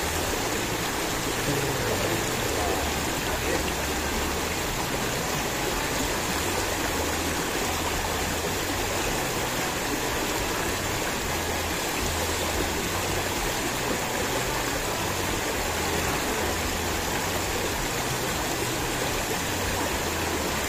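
Shallow river water flowing steadily, a constant rushing sound.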